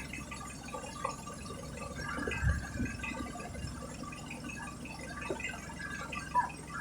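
Steady low hum with a few light knocks and a dull thump about two and a half seconds in.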